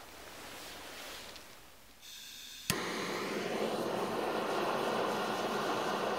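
Handheld gas torch lighting a Swedish torch log: a short hiss of gas, a sharp click of ignition about two and a half seconds in, then the flame running steadily as it is held into the log's centre cut.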